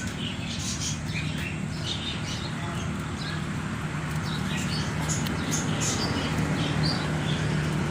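Small birds chirping in short, scattered calls over a steady low mechanical hum.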